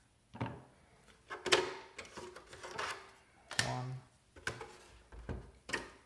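Sharp clicks and knocks of hard plastic as drives and tool-less drive trays are handled and a tray is pulled from a bay of a Synology DS418play NAS, about five separate knocks, the loudest about a second and a half in.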